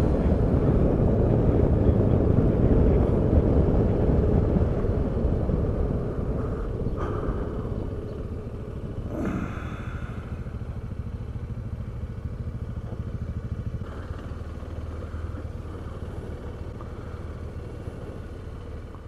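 BMW R1200RT touring motorcycle's engine running with wind rush on the bike-mounted camera, loud at road speed and then fading steadily as the bike slows down. A short falling sweep about nine seconds in.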